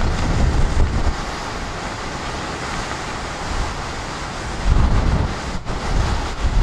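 Storm wind gusting through trees, a steady rushing noise, with gusts buffeting the microphone in low rumbling blasts during the first second and again from about five seconds in.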